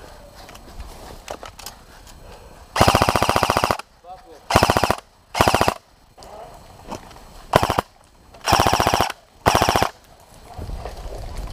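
Airsoft replica firing six rapid full-auto bursts. The first, about three seconds in, is the longest at about a second; the rest are short bursts over the next seven seconds.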